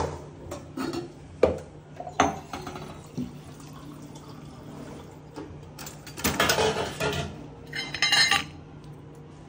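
Steel kitchenware clinking against the counter and bowl, three sharp knocks in the first couple of seconds, then two short rushing, splashing sounds near the end.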